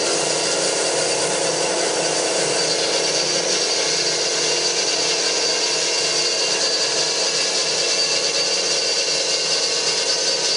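Hyd-Mech S20 Series 2 horizontal bandsaw running and cutting metal stock: a steady hiss of the blade on the metal with a high whine over it.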